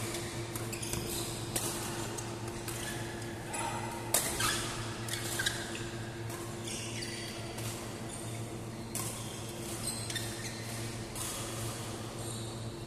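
Badminton rally: rackets striking a shuttlecock in sharp, repeated pops and court shoes squeaking on the floor, echoing in a large hall over a steady hum. The sharpest hit comes about four seconds in.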